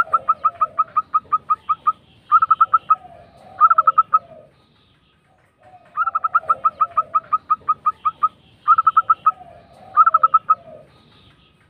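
Zebra doves (perkutut) singing a rolling song: fast trains of staccato cooing notes, about six or seven a second, over lower wavering coos. There are two long bouts with a short pause between them.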